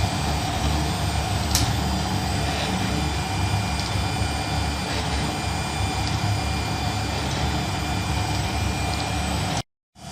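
3D printer running: a steady mechanical hum of fans and motors with a few faint ticks, cutting off abruptly near the end.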